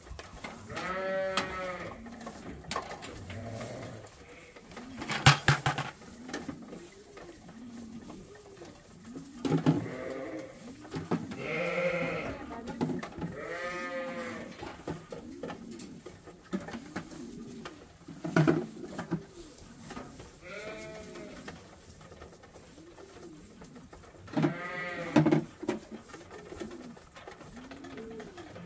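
Sheep bleating again and again in a barn, over the low, repeated cooing of pigeons. A sharp knock about five seconds in is the loudest sound, with a few more knocks later.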